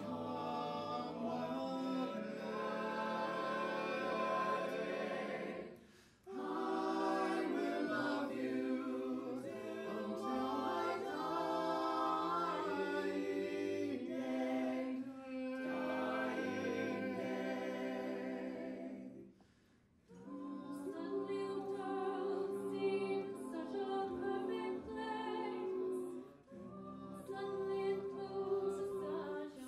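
Small mixed ensemble of eight voices, men and women, singing a cappella in close harmony, holding chords in long phrases, with brief breaks between phrases about six and twenty seconds in.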